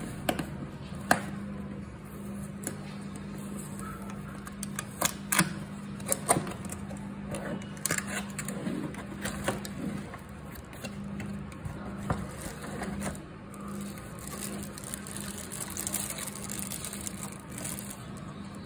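Cardboard box and plastic packaging handled while unpacking: scattered sharp taps and knocks with rustling and scraping between them, over a steady low hum.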